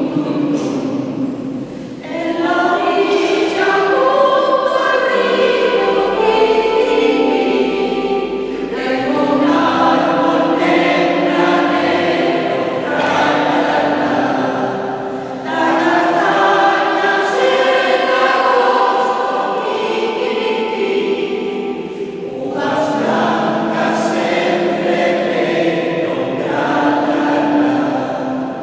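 Mixed amateur choir, mostly women's voices with a few men, singing in parts. The voices hold long notes in phrases of six or seven seconds, with short breaks between phrases.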